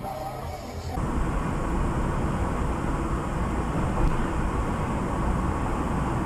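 Steady engine and road noise of a moving vehicle picked up by a dash camera, starting abruptly about a second in.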